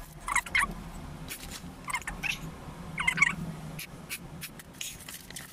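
A woman crying: three or four short, high-pitched sobbing whimpers, with small clicks and rustles between them.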